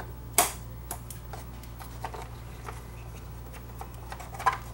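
Small clicks and taps of a hot-glued inverter circuit board being handled and worked loose from its mounting. There is one sharp click about half a second in and a quick cluster of clicks near the end, over a steady low hum.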